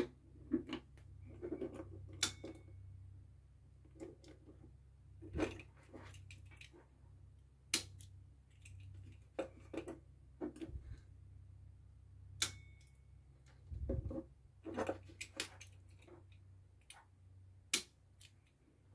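Irregular sharp clicks of industrial push buttons being pressed and released and of an 11-pin relay switching while a latching (holding) circuit is tested, over a faint low hum.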